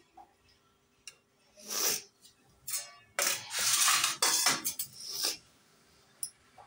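Steel ladle scraping and clinking against a metal kadai of thin curry: a few short strokes, then a longer stretch of stirring about three seconds in.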